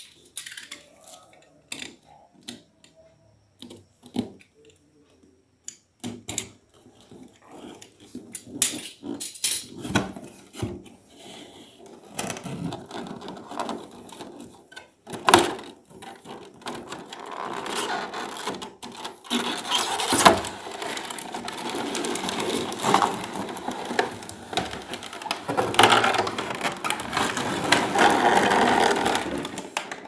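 Cardboard box being opened by hand, with scattered taps and scrapes of the flaps, then clear plastic blister packaging crinkling and rustling as it is pulled out, loudest in the second half.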